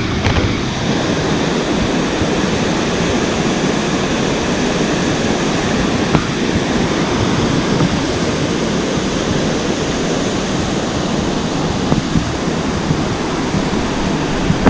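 White-water mountain stream rushing over boulders beneath a wooden footbridge, a loud, steady rush of water.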